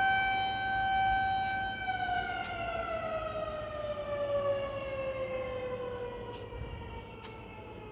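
Outdoor tornado warning siren sounding a steady tone, then winding down from about two seconds in, its pitch falling slowly as the sound fades.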